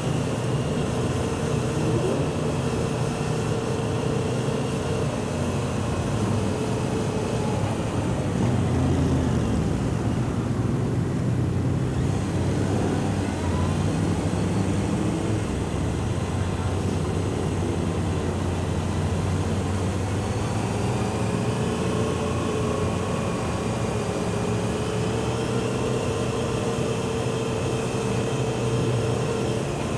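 Motorcycle engines at low speed: the rider's own Honda CBR600F inline-four running steadily, with other motorcycles close ahead, the pitch rising and falling a little with the throttle a few times.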